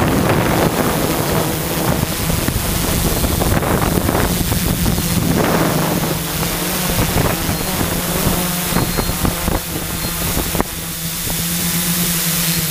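Quadcopter's electric motors and propellers humming steadily in flight, heard through the microphone of a camera mounted on the craft, with gusty wind buffeting on the microphone that eases about two-thirds of the way in.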